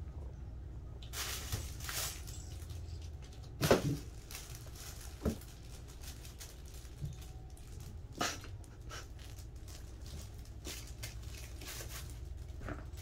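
Kittens playing: scattered thumps, scrabbles and rustles as their paws land on and scramble over a cardboard box and play toys, the loudest thump about four seconds in, over a steady low room hum.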